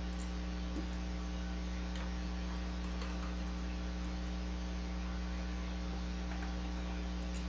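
Steady electrical mains hum, a low buzz with its overtones, unchanging throughout; no handling or tool sounds stand out above it.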